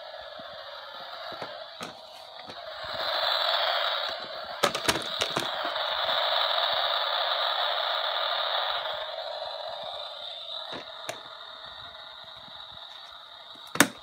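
Dirt Devil Junior toy upright vacuum playing its electronic vacuum-motor sound through a small built-in speaker: a steady thin whirring hiss with a constant high tone. It swells louder about three seconds in and eases off by about ten seconds. Light plastic clicks come from the toy being handled, with a sharp knock near the end.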